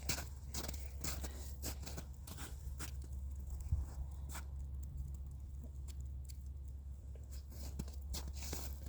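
Scattered small clicks and rustles of hands handling fishing gear and bait, busiest in the first half, over a steady low hum.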